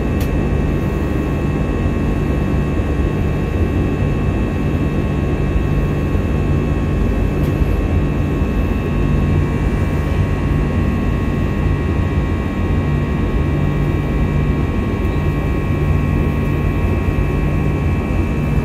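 Airliner cabin noise in flight: a steady, loud rumble of engines and airflow with several steady high-pitched tones over it, unchanging throughout.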